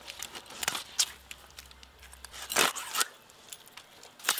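A large knife cutting up a raw scaled fish: scattered clicks and scrapes of the blade through scales, flesh and bone, with one louder rasping cut about two and a half seconds in and a sharp click near the end.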